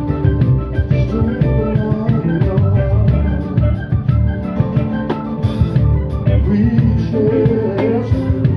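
Live band music: a drum kit played with sticks, dense snare and cymbal hits over sustained pitched chords and an electric guitar. A wavering, bending note stands out about seven seconds in.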